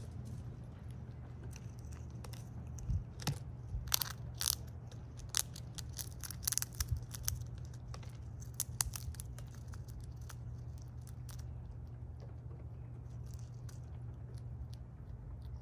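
A squirrel cracking open shells and chewing its food close to the microphone: a flurry of sharp crunching clicks that starts a few seconds in and thins out after about nine seconds, with a steady low hum underneath.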